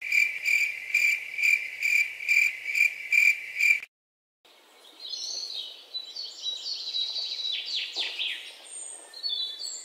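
A cricket chirping in an even pulsing rhythm, about two to three chirps a second, which stops a little under four seconds in. After a brief gap, birds sing in quick, warbling trills.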